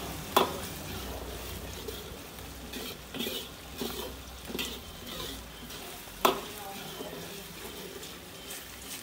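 Metal ladle stirring and scraping chilli bean paste (doubanjiang) frying in oil in a wok, with a low sizzle and a run of short scrapes midway. Two sharp clanks of the ladle against the wok stand out, about half a second in and again about six seconds in.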